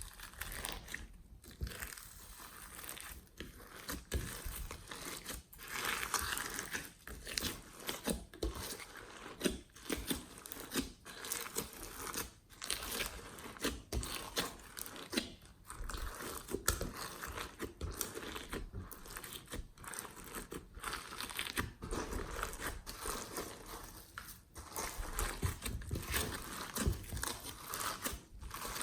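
Glossy slime being worked by hand, with a dense, irregular run of crackling and popping clicks as it is pressed, folded and pulled.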